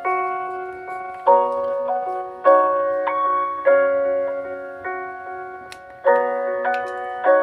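Gentle background music on a piano-like keyboard: soft chords struck about once a second and left to ring out.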